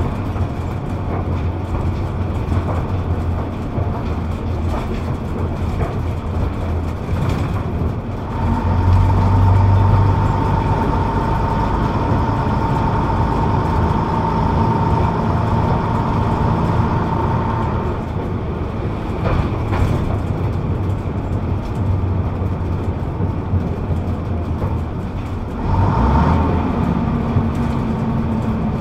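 Bus engine and drivetrain heard from the back seat while under way, a steady low drone. About a third of the way in it grows louder and a steady whine joins it for about ten seconds, then fades. A shorter surge with the same whine comes near the end.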